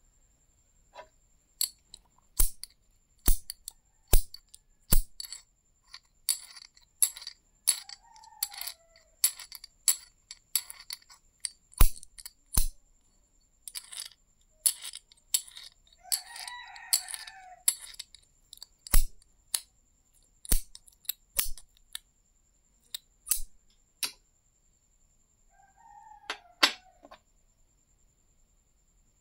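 Sharp metallic clicks and taps as a small cylindrical magnet is knocked against a large copper coin held in the hand, in irregular runs of strikes. A few short pitched calls sound faintly in the background.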